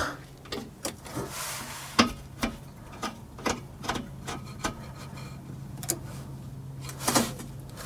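Irregular small clicks and taps of a hose fitting being handled and tightened by hand onto the brass multivalve of an underslung LPG tank, with a louder knock about seven seconds in.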